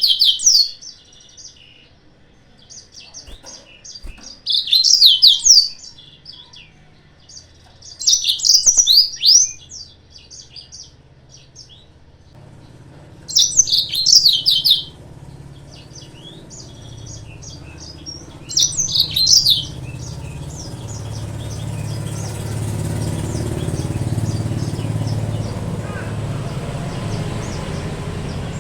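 Yellow-fronted canary (Mozambique canary) singing in short bursts of rapid high twittering, about every four to five seconds, five times. A steady low rumble builds up from the middle and carries on alone after the last burst.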